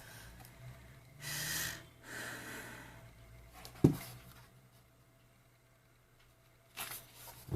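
Soft rustling of album photobook pages being handled and turned, two brief swishes, then a single sharp click about four seconds in.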